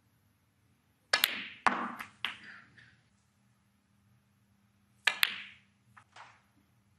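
Snooker balls clicking as two shots are played, about a second in and again about five seconds in. Each starts with a sharp double click, cue tip on cue ball and then cue ball on object ball, followed by a few lighter knocks.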